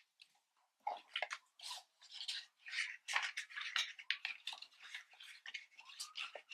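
Card stock and adhesive being handled on a work surface: irregular rustling and scratching of paper, starting about a second in.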